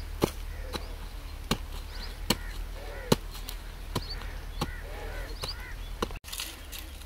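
A short-handled hand hoe chopping into soft earth, with a sharp thud at each stroke, about one to two strokes a second.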